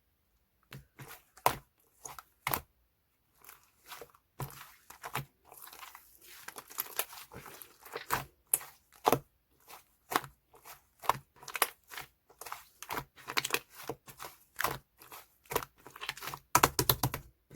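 Slime squished and stretched by hand, giving irregular sharp pops and crackles that start about a second in, with a quick run of pops near the end.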